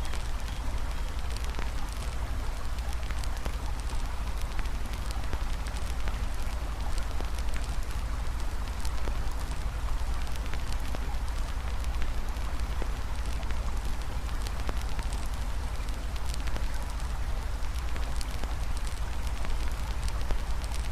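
Campfire crackling, with many small sharp pops and snaps, over a steady rush of flowing river water.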